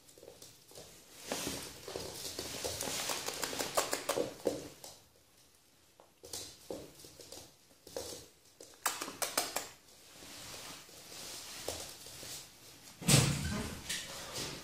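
Yorkshire terrier puppy play-biting and scuffling with a hand: irregular rustling and scratchy clicks, with a louder thump about 13 seconds in.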